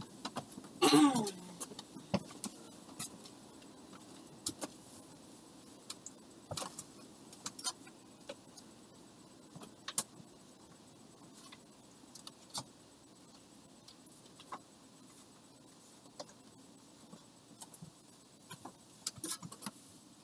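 Scattered light clicks, knocks and rattles of small objects being handled some way off, with a louder scrape or squeak about a second in that falls in pitch and a quick cluster of clicks near the end, over a faint steady hum.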